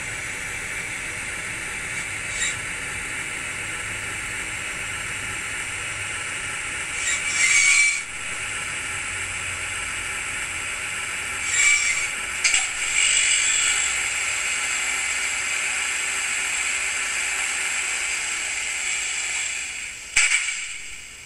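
Sound decoder in an N-scale model of the Rhaetian Railway Ge 4/4 II electric locomotive playing its running sounds through a tiny speaker: a steady hiss and hum, with short louder bursts about 7 and 12 seconds in and again near the end, where the sound drops away sharply.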